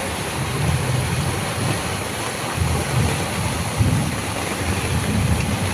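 Rain falling in a steady hiss, with wind buffeting the microphone in uneven gusts.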